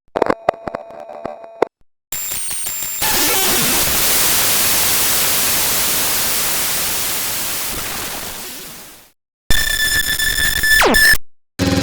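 Digital glitch sound effects in sequence: short stuttering, chopped electronic glitches, then a long burst of static hiss that fades away over several seconds, then another chopped glitch with high electronic tones and a falling pitch sweep.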